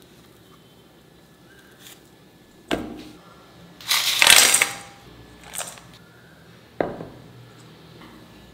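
Kitchen handling sounds in a stainless steel mixing bowl: two sharp metallic knocks with a brief ring, one near the start and one near the end. Between them comes a louder, longer rustling rush, with a shorter one just after it.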